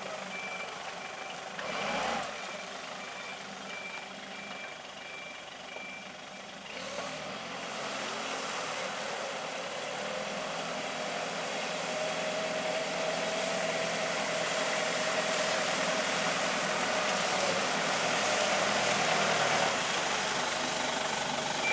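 Forklift engine running, with its reversing alarm beeping steadily, about two beeps a second, for the first six seconds or so. The alarm then stops and the engine grows gradually louder as the machine works.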